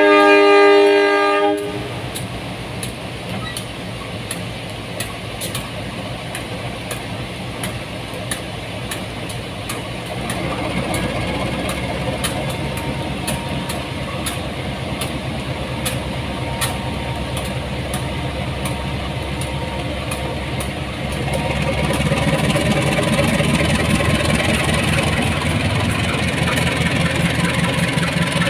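KAI CC 203 diesel-electric locomotive sounding one short horn blast of several tones, then its diesel engine running as the train pulls slowly past, growing louder about ten seconds in and again about two-thirds of the way through. Light regular clicks of the wheels over the rail joints run underneath.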